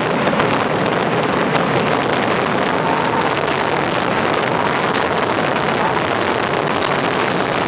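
Massed skyrockets (voladores) bursting overhead so thickly that their bangs merge into a continuous, steady rumble, with sharp cracks breaking through it.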